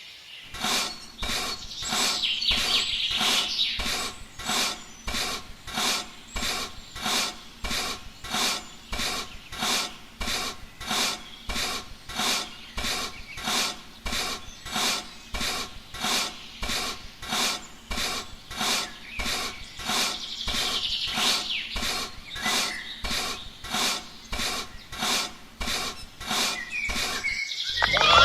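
Regular rasping strokes, about one and a half a second, from a rubbing or sawing action on a material such as wood.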